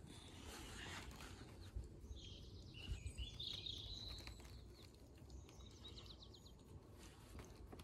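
Faint birdsong: high chirps with a quick trill of repeated notes in the middle, over a low background rumble.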